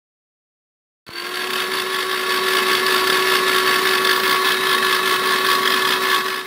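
Electric hand blender running steadily in a plastic beaker, beating eggs. It starts about a second in with a steady whine and cuts off suddenly at the end.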